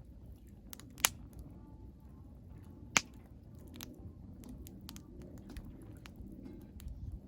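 Firewood burning in a campfire pit, crackling with light ticks and two loud sharp pops about one and three seconds in.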